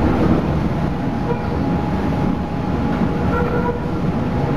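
PCC streetcar running along the track: a steady rumble, with a faint whine coming in about a second in.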